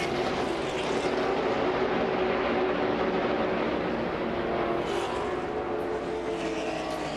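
Stock car V8 engines of the race field running at speed, a steady drone with several engine tones layered over one another.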